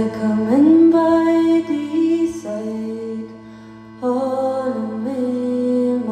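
Slow live folk music: a steady held drone with a melody gliding between long notes over it, in two phrases with a short break between them.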